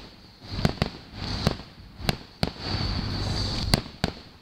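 Fireworks display: about half a dozen sharp bangs from shells bursting at uneven intervals, with crackling between them.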